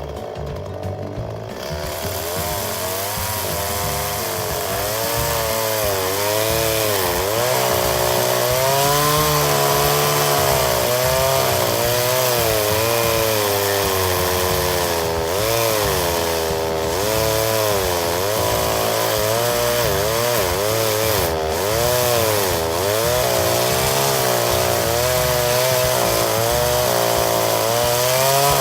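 Chainsaw cutting wood, its engine pitch rising and falling continually as the cut loads and frees the chain. It builds up over the first few seconds and stops abruptly at the end.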